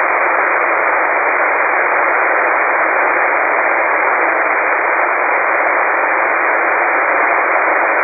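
Steady hiss of an HF shortwave receiver in upper-sideband mode on an idle aeronautical voice channel: an even rush of band noise squeezed into the narrow voice passband, with no transmission on the frequency.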